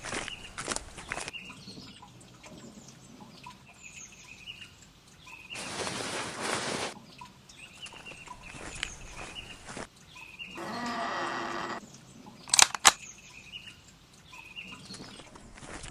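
Forest ambience with small birds chirping, broken by a loud rushing noise for about a second and a half, then a buzzing, drawn-out sound for about a second and a half, followed by two sharp, very loud cracks in quick succession.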